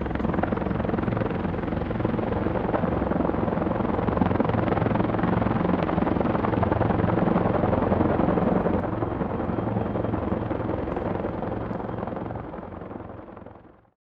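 Helicopter flying overhead, its rotor giving a steady low beat under a broad engine noise, fading out near the end.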